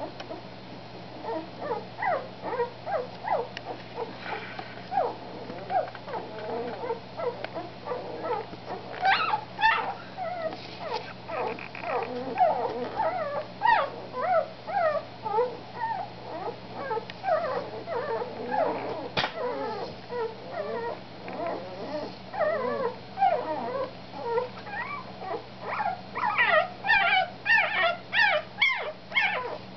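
Newborn puppies squeaking and whimpering: short, high cries that slide up and down in pitch, coming in quick succession, busier and higher near the end.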